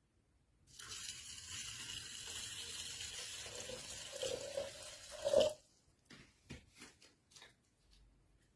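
Water running for about five seconds, then stopping abruptly, followed by a few light knocks.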